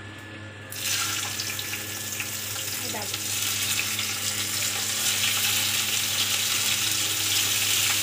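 Chopped green capsicum hitting a little hot oil in a wok (kadhai) and sizzling. The sizzle starts suddenly about a second in and keeps going, slowly getting louder.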